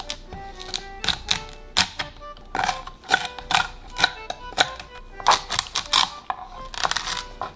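Kitchen knife tapping and cutting through snow crab meat and leg shells on a wooden cutting board, then a roller pressed over a crab leg to squeeze out the meat, in irregular sharp clicks and crunches. Quiet background music underneath.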